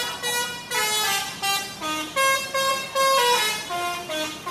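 A bus's 'telolet' musical air horn playing a quick melody, one held note after another, each changing pitch every fraction of a second.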